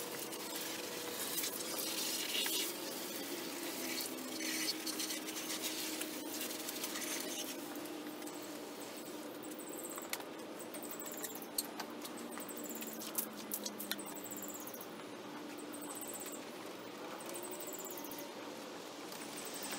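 Garden hose spray nozzle hissing as water sprays and patters onto a stripped wooden bench top, giving way after several seconds to scattered clicks and knocks as the hose is handled and the top is wiped down. Repeated short high chirps sound in the background.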